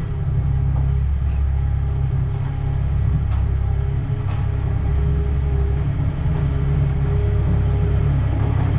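Tractor engine running steadily under load, a continuous low rumble.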